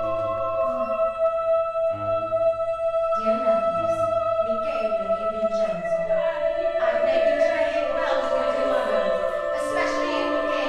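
Live contemporary chamber ensemble music with women's voices. A steady high note is held over shifting lower notes, and from about three seconds in, sharp struck attacks and singing fill out the texture.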